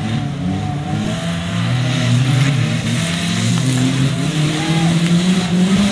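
Off-road race vehicle's engine revving hard as it drives across a sand course, its pitch rising and falling with the throttle and getting louder about two seconds in.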